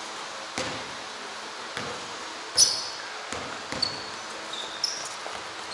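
Sneakers squeaking on a hardwood gym floor, mixed with scattered thuds of a basketball and footsteps. The loudest is a sharp squeak with a thud about two and a half seconds in.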